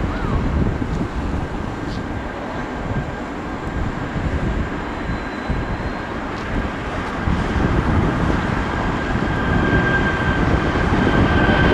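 Jet engines of an Airbus A340-600 airliner running with a steady rumble. The rumble grows louder in the last few seconds as a steady engine whine comes up over it.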